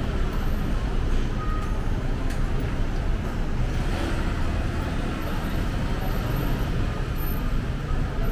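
Steady city street traffic noise: cars, taxis and motorcycles running and passing.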